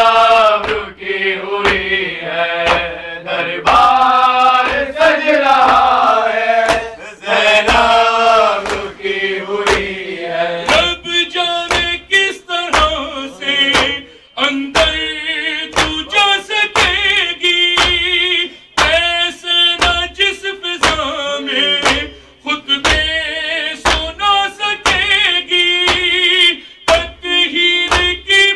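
A man chanting into a microphone in long, wavering sung phrases, with sharp, even strikes about one and a half times a second in time with the chant: hands beating on chests.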